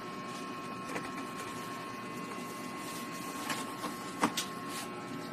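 Steady mechanical whir with a faint high steady tone, broken by a few sharp clicks about three and a half and four and a quarter seconds in.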